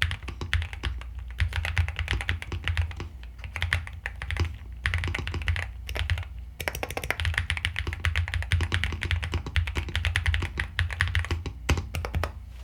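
Typing on a Nuphy Gem80 mechanical keyboard: fast, continuous runs of keystrokes with the deep "thock" of its switches and keycaps, broken by two short pauses. A steady low hum lies beneath.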